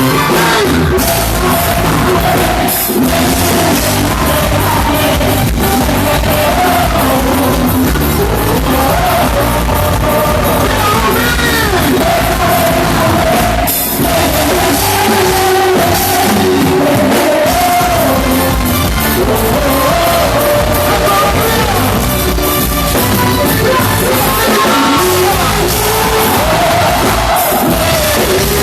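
Loud amplified music with a singing voice carrying a melody over a steady beat.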